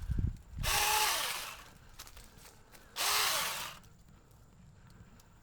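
Saker mini cordless electric chainsaw run in two short bursts of about a second each, its small motor spinning up and winding down each time, trimming vines and small branches.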